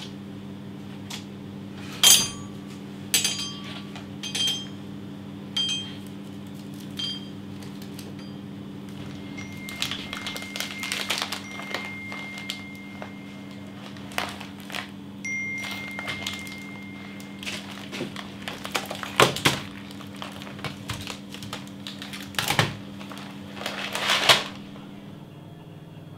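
Steady electrical hum of refrigerated drink coolers, with a run of ringing clicks and clinks, rustling, and several loud knocks as cans, bottles and snack packets are handled. Two long thin high beeps sound in the middle, and the hum stops shortly before the end.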